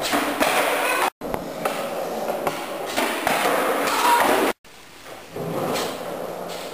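Skateboard on a bare concrete floor: wheels rolling, sharp tail pops and the board slapping and clattering on the concrete during kickflip attempts and a bail. The sound cuts out abruptly twice.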